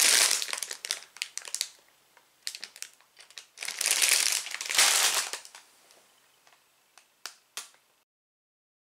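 Clear plastic bag of Lego pieces crinkling as it is handled and shaken, with the pieces inside clicking. There are two loud spells, one at the start and another about four seconds in, with scattered clicks between and after, and the sound cuts off to silence near the end.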